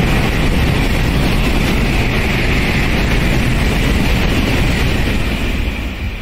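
Shinkansen bullet train rushing past at speed: a loud, steady rushing noise over a low rumble that swells up, holds for about five seconds, then starts to fade near the end.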